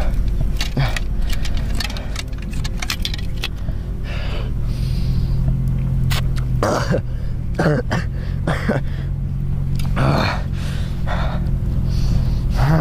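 A low steady drone underneath. In the first few seconds, quick clicks and crinkles of a gauze packet being torn open. From about seven seconds in, a man grunts and groans in pain about five times.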